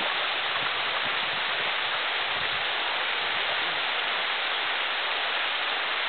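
Waterfall cascading down a sloping rock slab into a pool: a steady, even rush of water.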